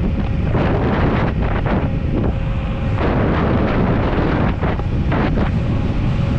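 Wind rushing and buffeting over the microphone of a VSETT 10+ electric scooter ridden at about 35 mph, gusting unevenly.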